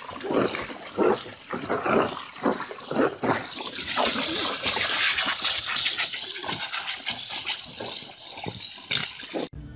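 Garden hose spray hissing into a plastic kiddie pool while a dog splashes about in the water, with many irregular splashes over the steady hiss. It cuts off abruptly near the end.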